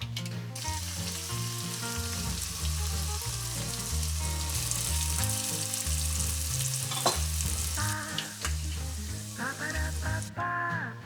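Food sizzling in oil in a hot pan while it is stirred, with one sharp knock of the utensil against the pan about seven seconds in. The sizzle stops shortly before the end.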